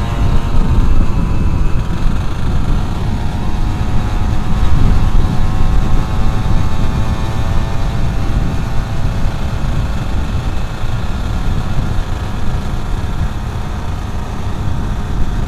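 Yamaha F1ZR's 110cc two-stroke engine running steadily on the move, fitted with its AHM exhaust, under heavy wind rumble on the microphone.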